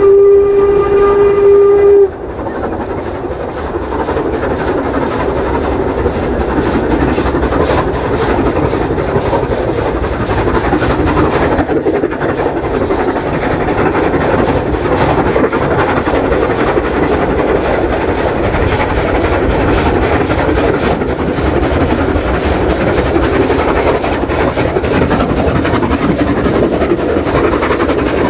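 Steam locomotive whistle from LMS Royal Scot class No. 46115 Scots Guardsman, one steady note that cuts off about two seconds in. After it, strong wind blowing across the microphone, mixed with the sound of the locomotive and its train running.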